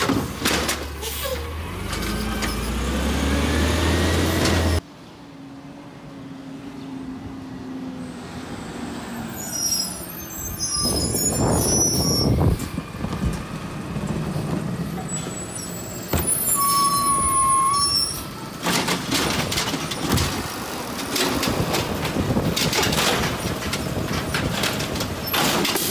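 Automated side-loader garbage trucks at work. One truck's engine runs loud as its arm sets a cart down, and the sound cuts off abruptly about five seconds in. A second truck then pulls up quieter, with high squeaks and a brief brake squeal. From about two-thirds of the way through, its engine revs hard while the hydraulic arm lifts and dumps a recycling cart.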